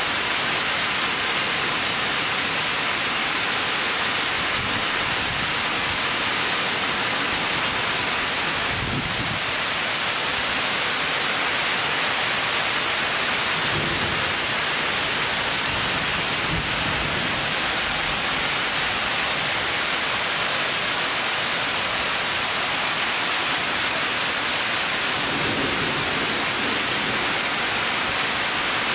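Heavy thunderstorm downpour pouring onto leafy trees: a dense, steady hiss of rain, with a few brief low rumbles scattered through it.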